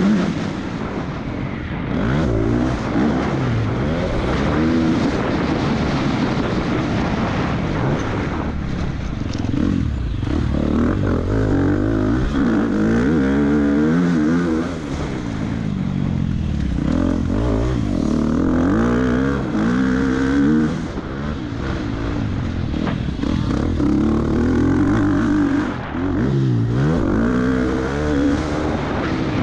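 Husqvarna FC 250's single-cylinder four-stroke engine revving hard under way, its pitch climbing and dropping again and again as the bike accelerates and slows through the track, with brief dips in the engine sound a few times.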